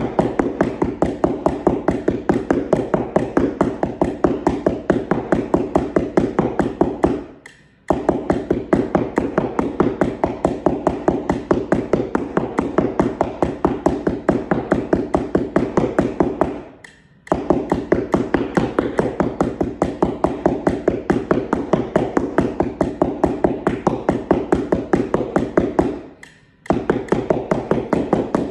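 Keyboard mallets tapping a cardboard practice keyboard laid on a rug in a steady, rapid stream of even strokes. They play an exercise in three runs of about nine seconds each, with brief pauses between them.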